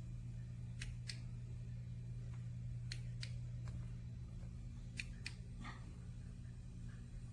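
A steady low hum with a handful of faint, sharp clicks scattered through it.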